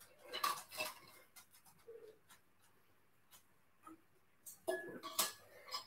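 A few faint clicks and knocks of a water bottle being opened and handled for a drink, in two short clusters: one in the first second and another near the end.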